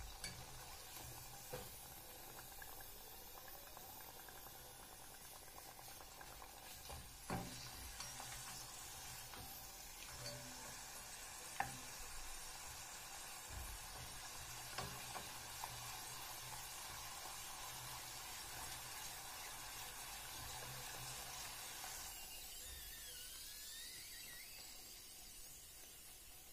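Rosette-shaped khvorost dough frying in a small pot of hot oil: a steady, gentle sizzle, with a few short knocks as the wooden spatula and stick touch the pot.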